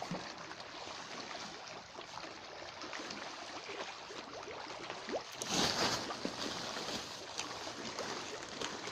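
Tilapia splashing and churning at the surface of a fish pond as they take thrown feed. There is a steady swirl of water, with a louder splash about five and a half seconds in.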